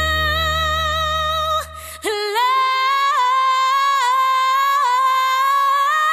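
A female voice singing a long, high held note with a slight waver, after a short break about two seconds in; before the break, held notes sound over a low drone.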